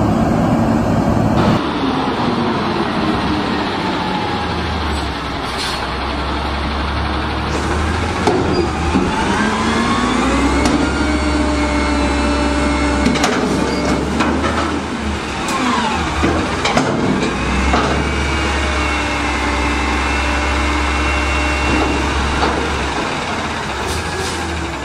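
Front-load garbage truck's diesel engine revving up to drive the hydraulic fork arms as they lift a steel dumpster over the cab and lower it again. The pitch rises and holds, drops, then rises and holds a second time. A few metal knocks from the dumpster and arms come through it.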